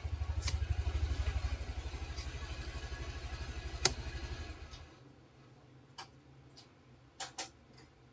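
A small engine runs with a low, rapid pulse and fades away about five seconds in. A few short, sharp clicks sound over it, the loudest about four seconds in.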